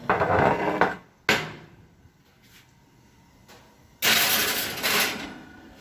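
Kitchen handling noises: a clatter lasting about a second, a sharp knock just after, then a glass baking dish scraping as it slides across a metal oven rack for about a second near the end.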